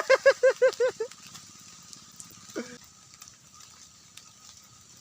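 A man laughing, a quick run of about six loud 'ha' notes lasting about a second, then only faint background with a brief sound about two and a half seconds in.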